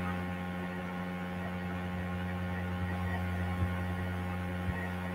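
Steady electrical mains hum in the recording, a low constant buzz, with a couple of faint clicks in the second half.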